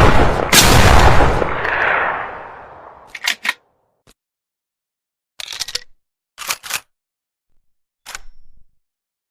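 TOZ over-and-under shotgun firing: one shot still sounding as a second goes off about half a second in and echoes away over the next couple of seconds. Short clusters of sharp clicks follow at intervals.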